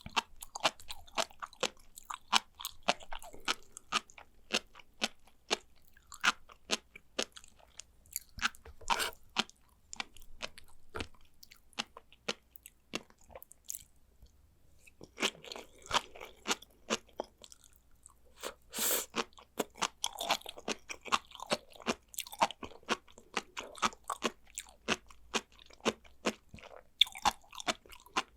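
Sea grapes being bitten and chewed: a rapid run of small crunches and pops as the beads burst, with a short pause about halfway through.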